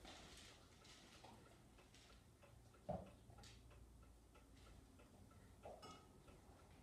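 Faint, even ticking, about two ticks a second, with one sharp knock about three seconds in.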